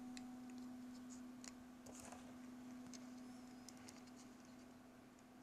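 Near silence: faint clicks and light scratches of plastic model-kit parts being handled, over a steady low hum.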